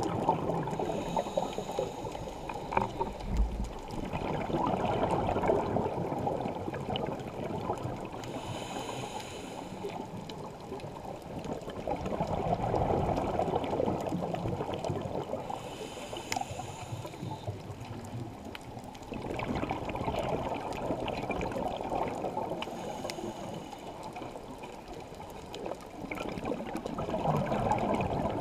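Scuba diver breathing through a regulator, heard underwater through the camera housing. There are about four breaths, each a short hissing inhale followed by a longer, louder bubbling exhale, repeating roughly every seven seconds.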